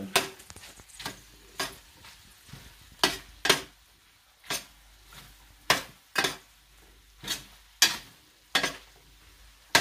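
Metal spoon scraping and clinking against a stainless-steel electric skillet as pork, peppers and onion rings are stirred, in irregular short strokes about one or two a second.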